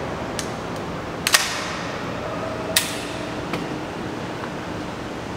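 Sharp metallic clicks and clacks as airsoft gas-blowback gun parts are worked by hand. Two loud clacks about a second and a half apart stand out among a few lighter clicks.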